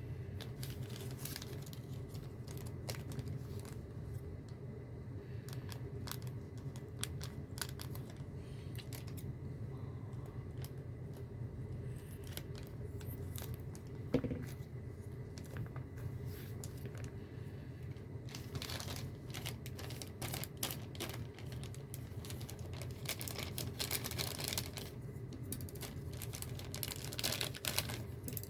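Plastic figure parts and packaging being handled: scattered light clicks and crinkling, coming in thicker clusters in the second half, over a steady low hum.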